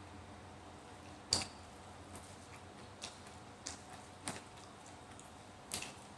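Sounds of eating a bowl of noodle soup: about six short, sharp clicks and wet mouth noises, the loudest about a second in.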